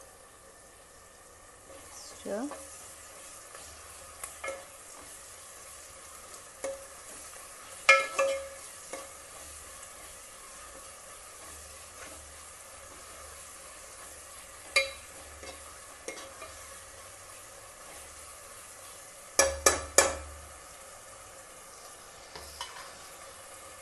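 A spatula stirring onions and spices frying in a pan: a steady sizzle broken by scrapes and knocks of the spatula against the pan, with a loud knock about eight seconds in and three quick knocks near the end.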